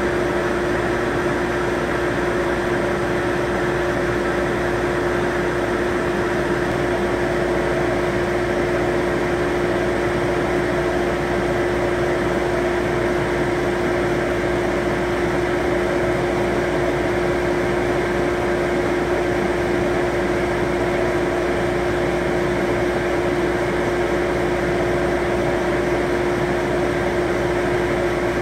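Laser marking machine running as it etches a sheet-metal car part: a steady fan-like whir with one constant humming tone, unchanging throughout.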